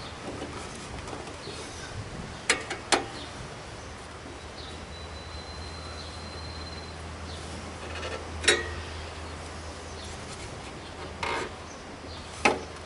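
Scattered sharp clicks and knocks of a grille being worked into a lawn tractor hood: two quick knocks about two and a half seconds in, a single one around eight and a half seconds, and a short scraping rattle near eleven seconds, over a low steady hum.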